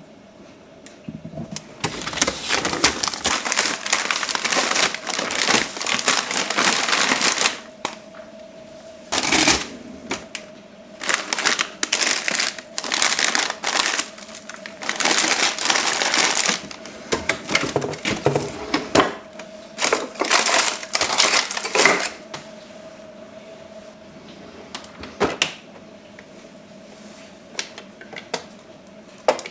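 Plastic food packaging crinkling and rustling, with clicks and knocks of plastic storage containers being handled, in irregular runs of a few seconds. A faint steady hum sits underneath in the quieter stretches.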